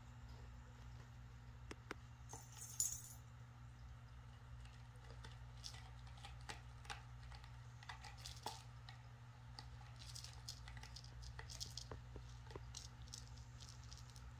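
Kittens batting at a scratching post's hanging toys: faint scattered taps and small jingles, with the loudest brief jingle between two and three seconds in.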